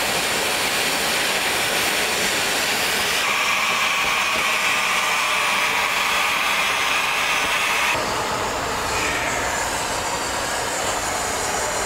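Steam jetting and hissing loudly and steadily from a valve beneath a 1906 Advance steam traction engine. The pitch of the hiss shifts about three seconds in and again near eight seconds.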